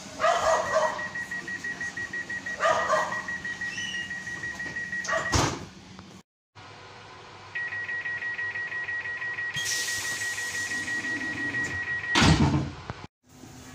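Train door closing warnings, twice: a rapid high-pitched beeping, about five beeps a second, ends in the knock of a DB Regio double-deck coach's door shutting. Then a PKP Intercity coach door beeps the same way for about four and a half seconds and shuts with a heavy thump.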